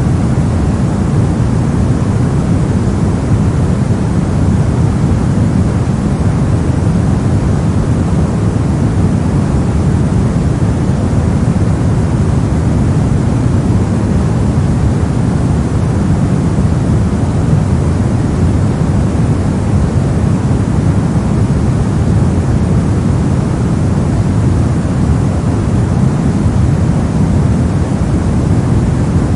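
Brown noise: a steady, loud, deep rumbling hiss of random noise weighted toward the low end, unchanging throughout.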